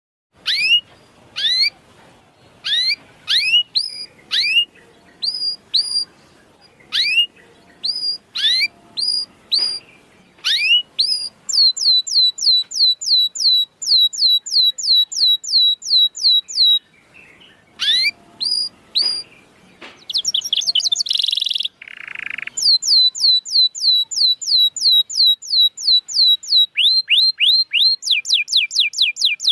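Domestic canary singing. It opens with repeated upward-sweeping chirps, then moves into fast rolling trills of many quick notes a second. A couple of short harsh, buzzy notes come about two-thirds of the way through before the trills resume.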